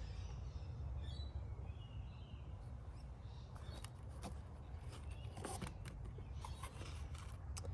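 Faint bird chirps over a steady low outdoor rumble, with a few light clicks of small parts being handled in the second half.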